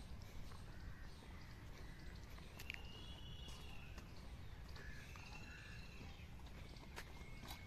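Outdoor ambience of birds calling over a steady low rumble: a drawn-out arching call about three seconds in and another around five seconds in, with several short sharp chirps or clicks scattered through.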